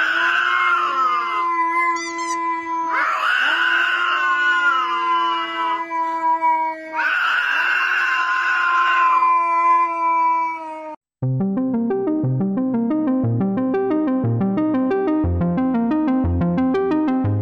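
An animal howling in long drawn-out calls, each about two seconds and arching up then down, repeated about every three seconds over held electronic tones. About eleven seconds in, the howls stop after a brief dropout and bouncy synth keyboard music with a steady beat takes over.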